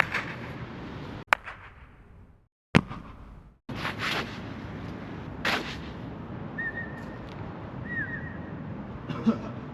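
Sharp single impacts or claps ringing out with an echo, separated by abrupt cuts to silence. Later come a few longer noisy hits and two short high chirps.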